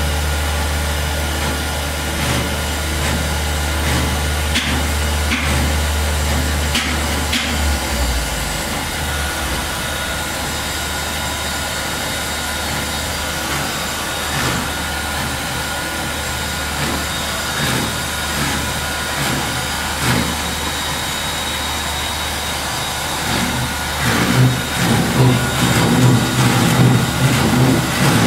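A steady machine drone, like an engine running, with a strong low hum that drops away about eight seconds in. Near the end an uneven low rumble grows louder.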